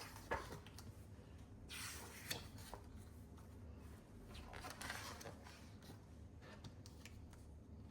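Faint paper rustling and a few soft clicks over a low steady room hum, the sound of a picture book's pages being handled and turned.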